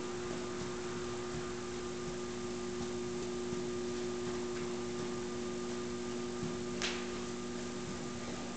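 Steady electrical hum holding a few fixed tones over a background hiss, with one short, sharp rustle about seven seconds in.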